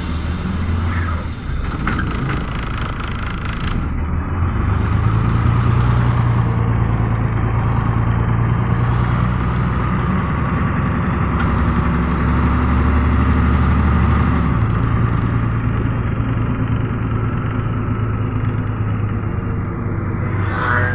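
Mercedes-Benz O405 city bus's diesel engine running as the bus drives along, heard from inside the passenger cabin; a steady low drone whose pitch shifts a few times.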